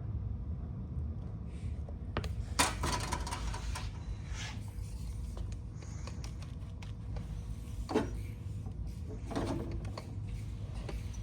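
Steady low hum with a sharp knock about two and a half seconds in and another about eight seconds in, amid a few short scrapes and rustles.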